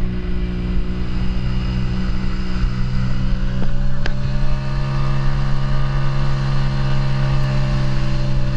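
Outboard motor on a small boat running steadily, pushing the boat along at cruising speed.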